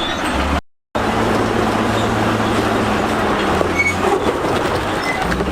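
Heavy diesel earthmoving machinery working, a steady low engine drone under a dense metallic grinding and squealing. The sound cuts out for a moment under a second in, then carries on.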